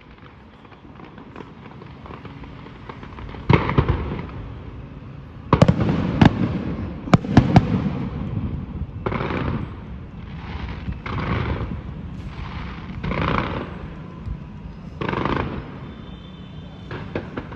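Aerial fireworks bursting overhead: a sharp bang about three and a half seconds in and a cluster of bangs a couple of seconds later. After that comes a run of duller, half-second crackling bursts every second or two.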